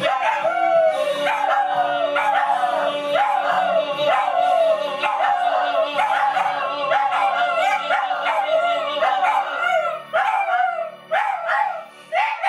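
Dogs howling in a long run of short wavering howls, each rising and then falling, about two a second, over a music backing that stops about ten seconds in; after that the howls come broken up with short gaps.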